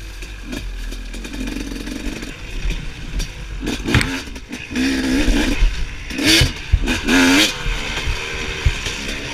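Dirt bike engine with a Bill's Pipes aftermarket exhaust, revving up and down as the rider works the throttle on a tight woods trail. It gets louder in several throttle bursts from about four to seven and a half seconds in, with a few sharp knocks mixed in.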